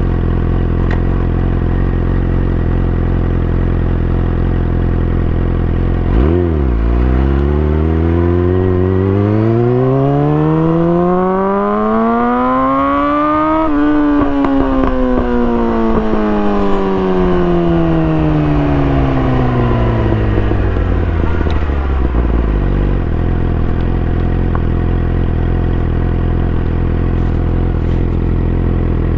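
2017 Yamaha R6's inline-four through an Akrapovič exhaust, idling steadily. About six seconds in it gets a quick blip, then revs smoothly up to a high pitch and slowly falls back to idle.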